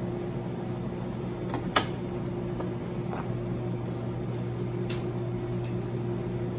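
Steady low machine hum of kitchen equipment, with a sharp click about two seconds in and a fainter one about five seconds in.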